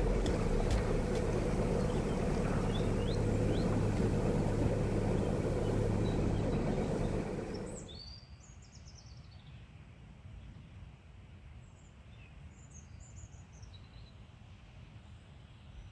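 Narrowboat engine running with a steady low hum, stopping about halfway through. Then a quiet background with small birds chirping.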